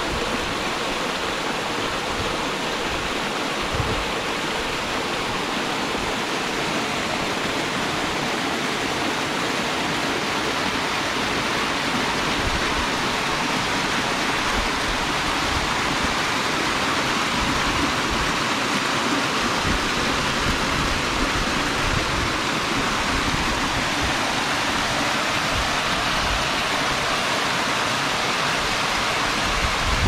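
Cascading mountain creek water rushing steadily over a series of small falls, a little louder from about halfway through.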